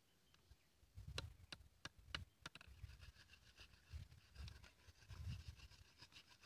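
Faint, sharp clicks of a machete blade tapping and cutting into a thin green bamboo rod, about five in quick succession a second or so in, followed by softer scraping of the blade on the bamboo.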